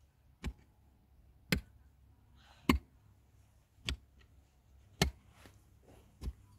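Six sharp blows, evenly spaced a little over a second apart: steady striking with a hand tool.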